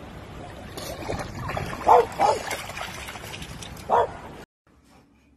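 A dog barking in short, high yips, two close together about two seconds in and one more near four seconds, over a steady rushing noise. The sound cuts off abruptly about four and a half seconds in.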